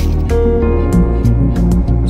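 Background music: a plucked-string instrumental with a steady bass.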